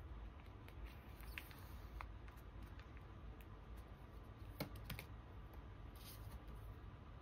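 Soft plastic rustling and tapping as a photocard in a matte card sleeve is slid into a clear binder pocket page. A few sharp little clicks come through, the loudest pair about two-thirds of the way in. A faint low rumble runs underneath.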